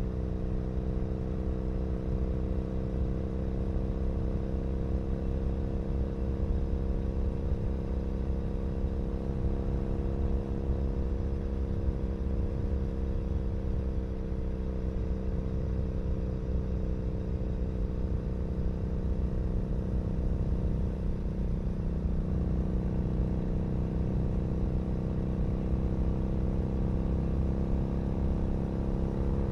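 2012 Triumph Bonneville SE's 865 cc parallel twin running through a British Customs Predator exhaust, heard from a microphone at the exhaust, cruising at a steady pace. The engine note sags slightly midway and picks up again near the end.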